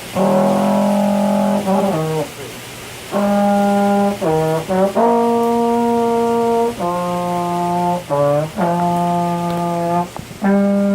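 A low brass instrument played solo: long held notes, most near the G below middle C, broken by short quick runs of lower notes between them.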